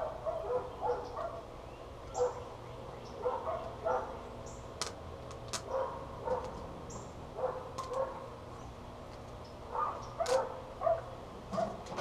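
Short animal calls repeating in clusters of several a second, with a few sharp clicks in between.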